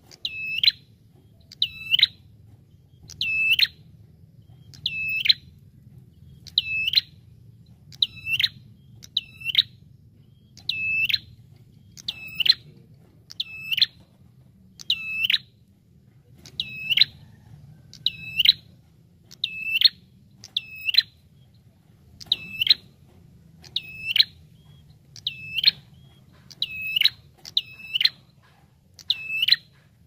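Caged ashy tailorbird (prenjak kepala merah) calling tirelessly: a loud, sharp, high call repeated about every second and a half, some calls doubled. This is the incessant calling kept birds are prized for and used to lure wild birds.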